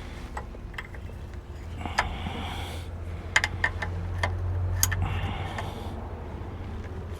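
A wrench working on a power steering hose fitting gives a run of sharp metallic clicks and taps, bunched in the middle, with rustling and a steady low hum underneath.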